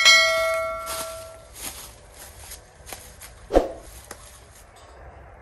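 A subscribe-animation bell chime sound effect rings and fades over about a second and a half. It is followed by footsteps on grass and a single dull thump about three and a half seconds in as a steel propane cylinder is set down on the ground.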